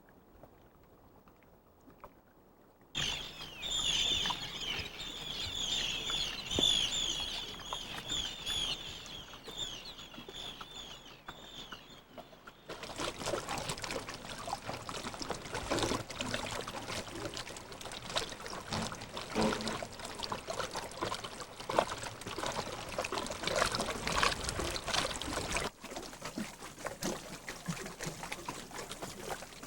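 A bird calling in a rapid series of short, high, repeated notes, followed by splashing, trickling water for about the second half. Near silence for the first few seconds, and the water sound drops off suddenly near the end.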